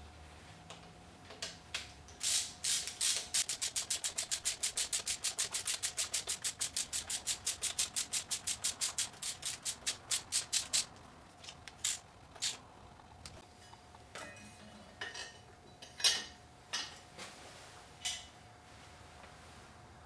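Ratchet wrench clicking in a fast, even run of about five clicks a second for some eight seconds, as an intake manifold bolt is run down, then a few scattered clicks and knocks.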